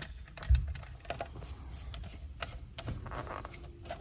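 Light clicks and ticks of a hand screwdriver turning Phillips screws into the metal housing of a Uconnect radio unit, with one dull thump about half a second in.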